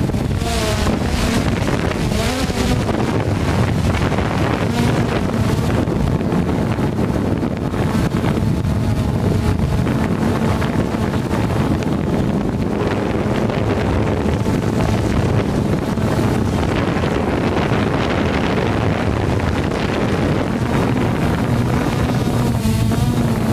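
Hubsan quadcopter's motors and propellers buzzing steadily in flight, with wind buffeting the microphone; the pitch wavers in the first couple of seconds as the drone manoeuvres.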